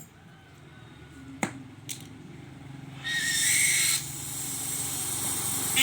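Electric arc welding on the cracked cover of a rice mill's husker: two light clicks, then the arc strikes about three seconds in with a loud hiss for about a second, settling into a steadier, quieter hiss.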